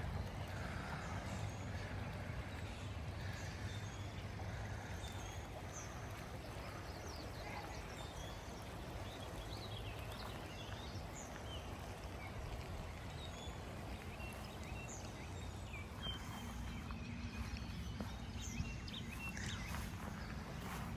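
Steady rush of a river running high after rain, with small birds chirping on and off above it.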